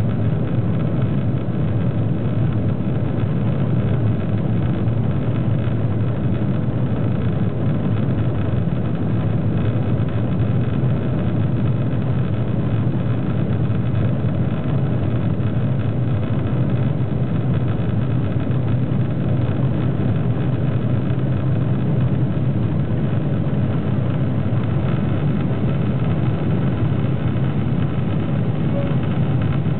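Boeing 737-800's CFM56-7 turbofan engines at takeoff thrust during the takeoff roll, heard from inside the cabin over the wing: a loud, steady low roar.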